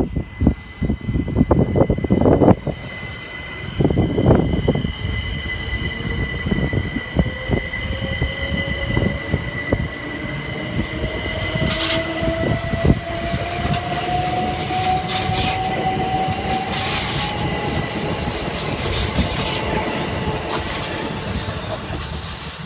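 Class 387 electric multiple unit running through the station, its traction motors whining steadily upward in pitch as it picks up speed, over a steady high electrical tone. There is wheel and rail noise with sharp squeals and clatters in the second half, and a few loud low thumps in the first few seconds.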